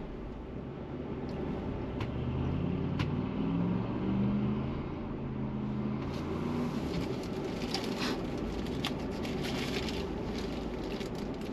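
A vehicle engine is heard from inside the truck, pulling harder and rising in pitch from about two seconds in, then easing off around seven seconds, over a steady low rumble. In the second half, crunching and crackling of tyres over snow takes over.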